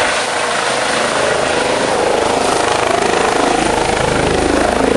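Helicopter running close by: a dense rushing noise with a fast low rotor chop that grows stronger about three and a half seconds in.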